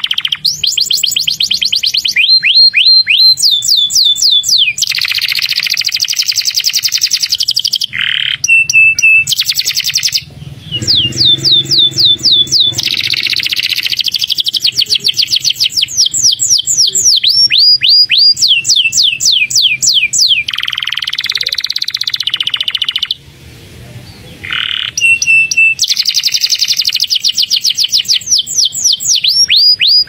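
Domestic canary singing a long, loud song: fast trills of quick downward-sweeping whistled notes alternating with buzzy rolls, broken by a short pause about a third of the way through and another about three-quarters through.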